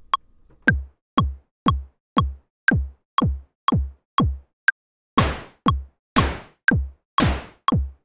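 Ableton Live's metronome clicking twice a second with a synthesized kick drum on every beat, a deep thud that falls in pitch. From about five seconds in a noisy synthesized snare joins about once a second, layered onto the looped pattern by MIDI overdub recording.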